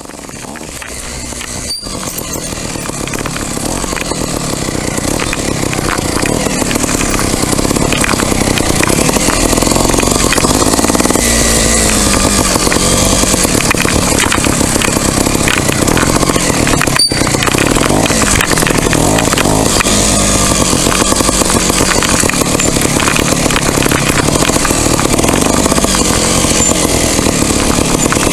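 Trials motorcycle engine running and revving up and down as the bike is ridden, fading in over the first few seconds.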